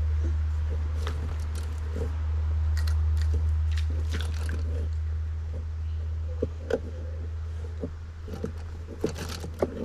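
Scattered small clicks, taps and crackles close to the microphone, over a steady low hum.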